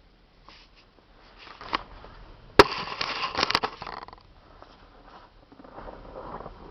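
Subaru Forester's flat-four engine cold-starting: a few light clicks, then a sharp click as the starter cranks for about a second and a half and the engine catches, settling into a rough, uneven cold idle. This is the cold-engine knock that the owner suspects comes from the timing-belt tensioner.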